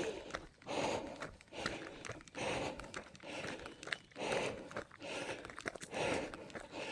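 A runner's heavy, rhythmic breathing, one breath about every three-quarters of a second, from the exertion of running uphill.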